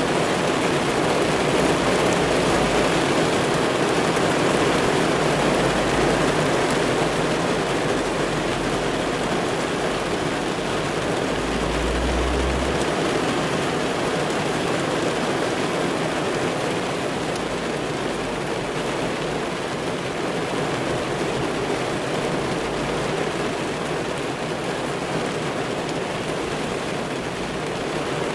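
Steady rain drumming on a car's roof and windows, heard from inside the car, with a few brief low rumbles underneath.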